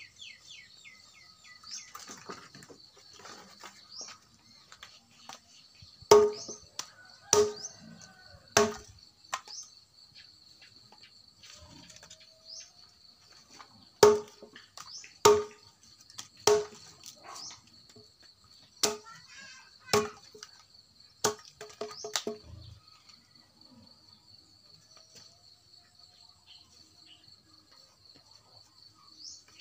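Dry branches being chopped: sharp, ringing chops about a second apart, a run of three about six seconds in and a longer run of about seven starting halfway through. Insects buzz steadily underneath, and birds chirp briefly at the start.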